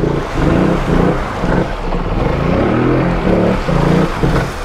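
2019 Polaris Sportsman 850 High Lifter ATV's 850cc twin-cylinder engine revving up and down several times under load as it churns through deep swamp water, over a steady wash of splashing water and mud.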